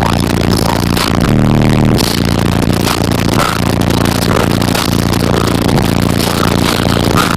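A truck's car-audio system playing bass-heavy music at high volume through a wall of large subwoofers, heard inside the cab. Deep bass notes change every second or so, and the cab rattles and buzzes under the bass.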